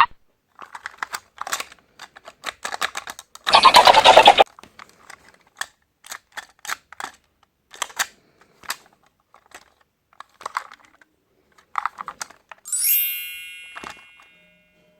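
Irregular clicking and clattering of plastic toys being handled, with a short loud burst of sound about four seconds in. Near the end comes a bright ringing chime that fades away.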